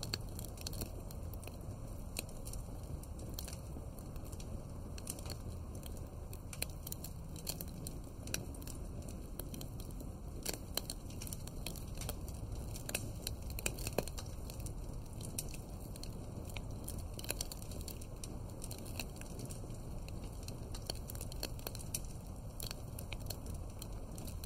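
Wood fire crackling: irregular sharp pops and snaps over a steady low rush, with no rhythm to the pops.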